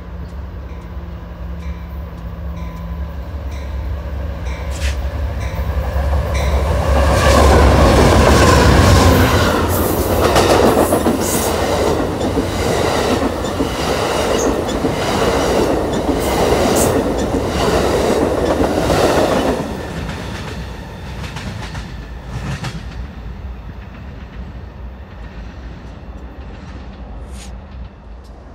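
Amtrak Southwest Chief passenger train led by two GE P42DC diesel locomotives, approaching and passing at speed. The locomotives' engines build to their loudest as they go by, about seven to nine seconds in. Then the wheels of the Superliner double-deck cars click steadily over the rail joints until the train clears, about twenty seconds in.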